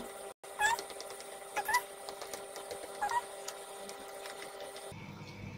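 About four short, high-pitched animal calls in the first three seconds, over a faint steady hum.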